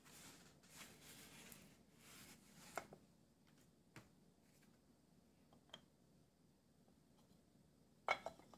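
Near silence with faint handling rustles and a few light clicks on the workbench. Near the end comes a sharper knock as a wooden block holding a bearing is set down on the chainsaw crankcase.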